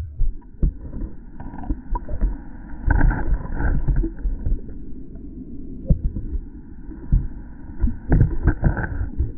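Muffled underwater sound heard through a submerged camera: a steady low wash of moving water broken by scattered knocks, which cluster about three seconds in and again near the end.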